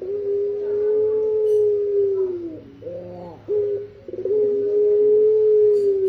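Pelung puter dove (a collared-dove type) giving its drawn-out coo: two long, steady coo notes of about two seconds each that drop in pitch as they end, with a couple of short coos between them.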